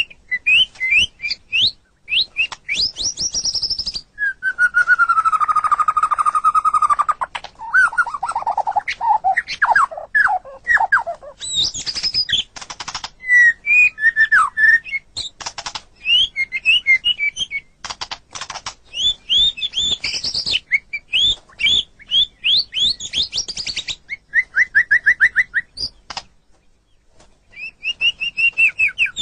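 White-rumped shama (murai batu) singing a long, varied song of clear whistles, sliding notes and rapid trills, with a short pause near the end.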